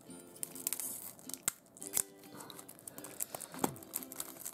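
Tight plastic shrink-wrap on a CD case crinkling and tearing as it is cut with scissors and peeled off, with many small sharp clicks and crackles.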